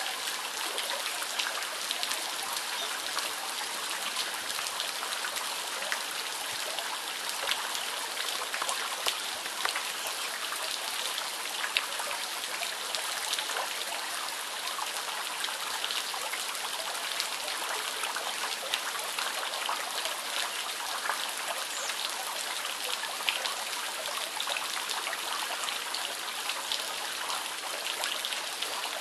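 Steady rain falling on standing water and wet grass, with many separate drop hits through it.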